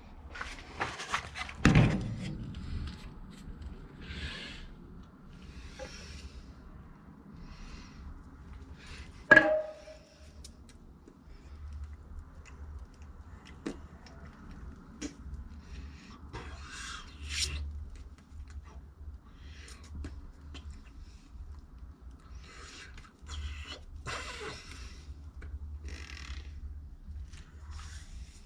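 Workshop handling noises: scattered clicks, knocks and rustles of tools and parts being moved, with one loud metallic clank about nine seconds in that rings on briefly.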